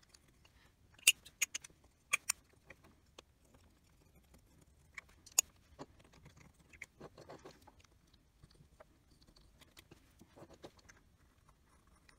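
Small plastic razor blade scraping old adhesive off the edge of an Intel i7-8700K CPU's substrate: a scattering of sharp clicks and short scratches. The loudest clicks come about a second in, a second later, and about five seconds in.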